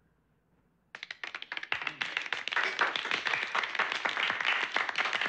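A small group of people applauding: after about a second of near silence, dense hand-clapping starts suddenly and keeps going.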